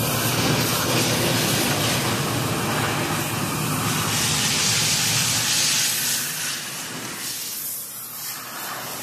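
Loud, steady hissing rush with a low hum beneath it; the hum falls away and the sound gets quieter about six to seven seconds in.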